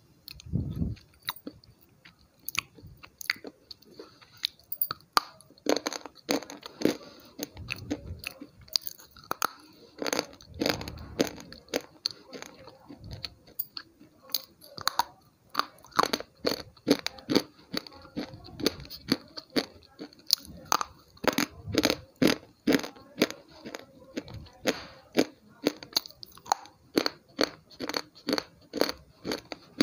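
Slate pencils bitten and chewed right at an earphone microphone: a run of sharp, dry crunches, uneven at first, then steady at about two a second through the second half.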